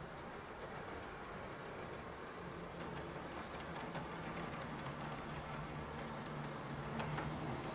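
Model train running on the layout's track: the wheels click over the rail joints over a steady low motor hum. It grows louder toward the end as a model class 158 unit approaches the passing loop.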